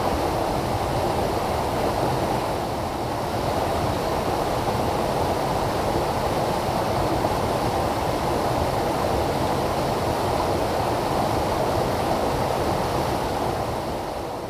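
Mountain stream rushing over boulders in small cascades: a steady, full rush of white water, fading near the end.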